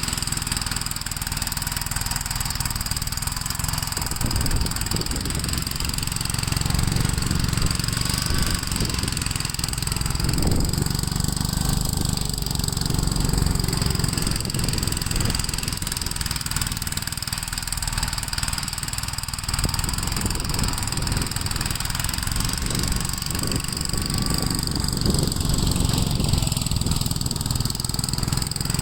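Gravely walk-behind tractor engine running steadily while plowing snow, its level swelling and easing gently every several seconds.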